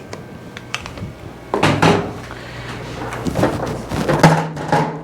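Clicks and knocks of cupping cups being handled and set on a patient's skin: a few light clicks, then from about one and a half seconds in a run of louder knocks and scrapes.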